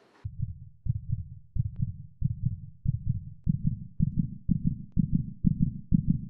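Heartbeat sound effect: deep double thumps that speed up from about one and a half beats a second to about two, then cut off abruptly.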